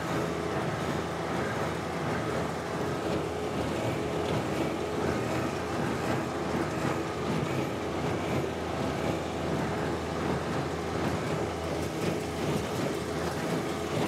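John Deere 1025R subcompact tractor's three-cylinder diesel engine running steadily while driving a John Deere 327 small square baler through its PTO, the baler picking up and packing a windrow of hay.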